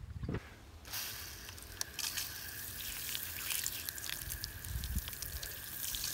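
Waterport Day Tank's shower nozzle spraying water that splashes over hands and patters onto the ground. The steady spray hiss starts suddenly about a second in.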